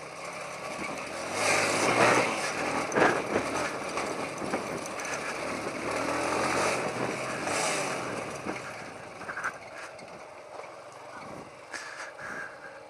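Motorcycle engine running on a rough dirt trail, getting louder about a second and a half in and easing off after about eight seconds.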